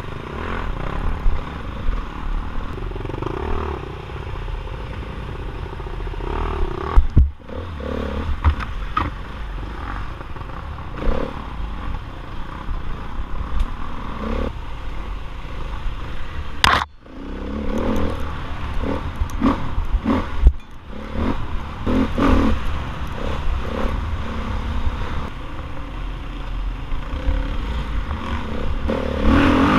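Off-road motorcycle engine running hard under throttle, rising and falling with the riding, with rattling and clatter from the bike over rough ground, heard from a helmet-mounted camera. A couple of sharp knocks and brief dips in the engine noise, about a quarter and halfway through.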